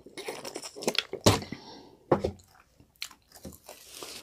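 A person chewing food with several crisp crunches, the loudest just over a second in.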